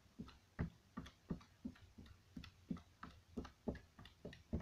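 Hands patting in a steady rhythm, about three soft thumps a second, each with a light click.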